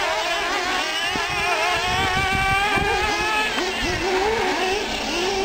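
Several nitro-powered 1/8-scale R/C trucks running laps on a dirt track, their small glow engines buzzing and revving, the pitch rising and falling over and over as they accelerate and back off. One engine holds a high steady whine for a couple of seconds in the middle.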